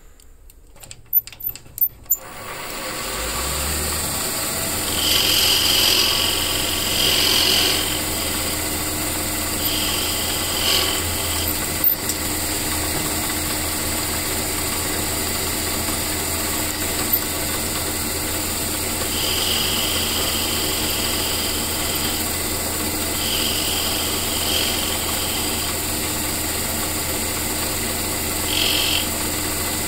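A few sharp clicks, then a small metal lathe starts up and runs steadily with a low hum. The lathe is turning a G-10 fibreglass ferrule on a cue shaft, and at intervals a higher-pitched cutting sound comes in for a second or two as the tool bites.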